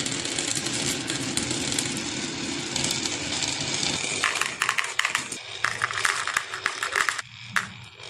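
Marbles rolling down a wooden marble-run track with a steady rolling rumble, then clicking and clattering rapidly from about halfway in. The sound cuts off abruptly at the end.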